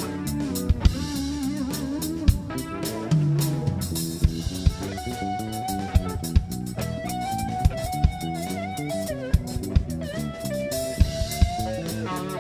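A band playing at a soundcheck: an electric guitar carries a sustained, bending melody over a drum kit's steady beat.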